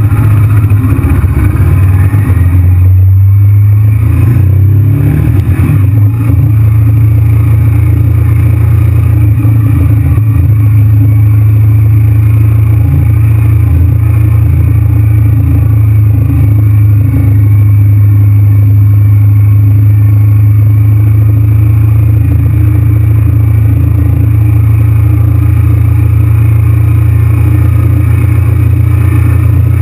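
Honda VTR1000 V-twin sport bike engine running at steady cruising revs, heard from the rider's seat. Its note shifts briefly a few seconds in, then holds even.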